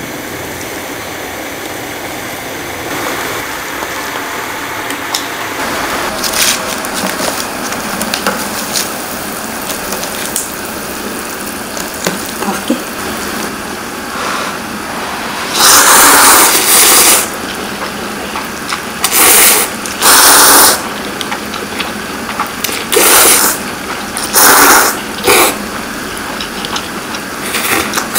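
People slurping up Shin Ramyun instant noodles: one long loud slurp a little past halfway, then several shorter slurps, over a steady hiss.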